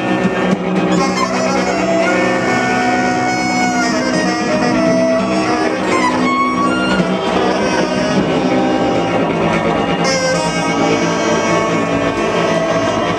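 Loud, dense live improvised music: a thick drone of held notes with saxophone lines sustained and sliding in pitch over prepared guitar. Short buzzy rattles cut in about three seconds in and again around ten seconds.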